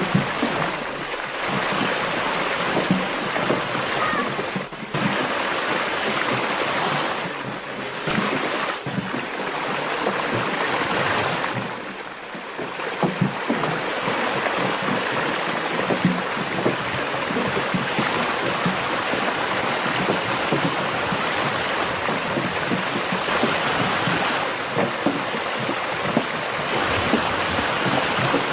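Steady rushing noise, with brief dips about five and twelve seconds in.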